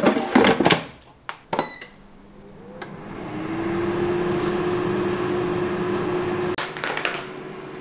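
Air fryer basket drawer pushed shut with a few clunks and clicks, a short beep, then the air fryer's fan starting up: a steady whirring hum whose tone rises and settles, dropping lower near the end.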